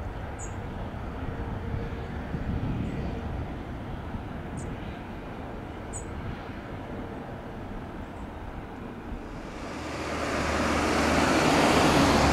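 Airbus A380's four jet engines swelling to a loud broad roar over the last few seconds, over a deep steady drone, as the airliner takes off. Before it there is a steady low rumble with a few faint high chirps.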